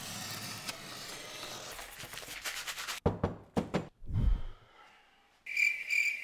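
A knife blade sawing through styrofoam packaging, a steady scratchy rasp that cuts off suddenly about three seconds in. Three dull thumps follow about half a second apart, then, from about five and a half seconds in, a cricket-chirp sound effect in short repeated pulses.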